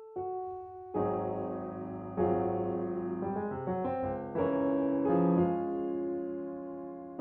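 Background piano music: notes and chords struck about once a second, each ringing and fading, with a quicker run of notes midway.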